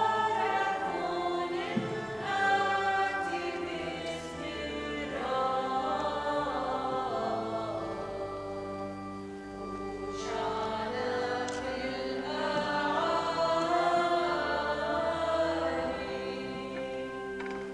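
A liturgical hymn or chant sung slowly in long held notes, with a short break between phrases about halfway through.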